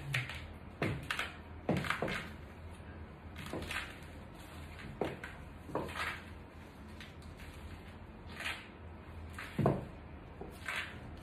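Platform stiletto heels knocking on a tiled floor as the wearer shifts and turns in place: about ten scattered sharp clacks, the loudest about three-quarters of the way through.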